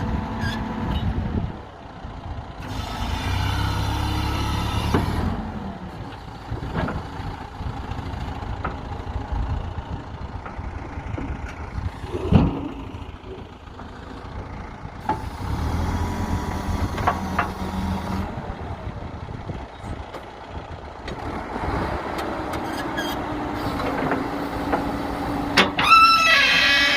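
Diesel engine of a JCB backhoe loader working, its sound swelling and dropping as the machine is loaded, with scattered clanks, a sharp loud knock about twelve seconds in, and a squeal near the end.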